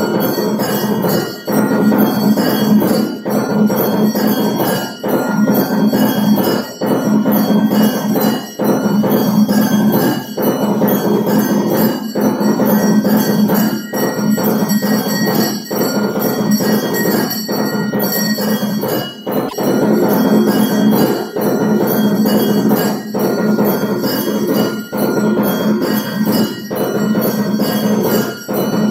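Hindu temple bells (mandir ghanti) rung continuously for aarti: several bells clang together in a loud, unbroken, ringing din, with brief dips every couple of seconds.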